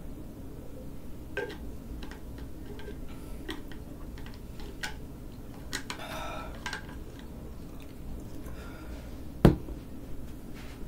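Handling noises from a drink bottle with a metal screw cap: scattered light clicks and a short scrape a little after halfway, then a single sharp knock near the end.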